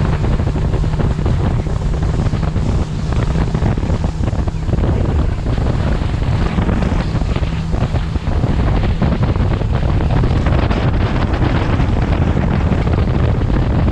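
Strong wind buffeting the microphone, loud and steady, a sudden gust coming over the open water. A low steady hum sits under it in the first half.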